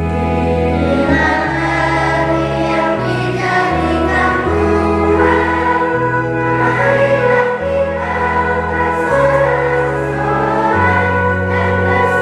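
Children's choir singing a hymn with keyboard accompaniment, the keyboard holding sustained bass notes that change about every second. Choir and keyboard come in together at the start.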